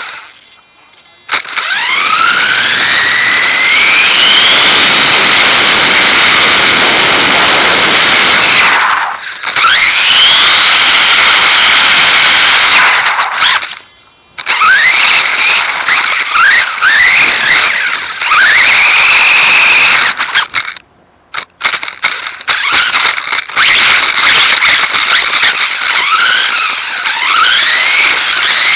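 Dromida DB4.18 RC buggy's electric motor and drivetrain whining, the pitch climbing again and again as it accelerates, over a steady hiss of tyre and road noise. The sound cuts out briefly a few times.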